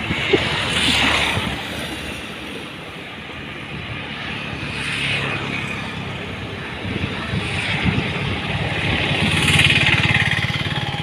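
An engine running steadily with a low, even pulsing rumble, while a louder rushing noise swells and fades three times.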